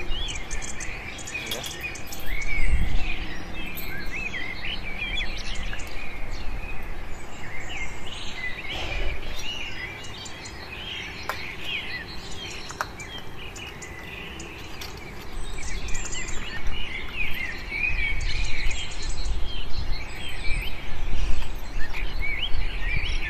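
Many birds chirping and calling, short quick chirps overlapping throughout, over a low rumble that swells about two seconds in and again through the second half.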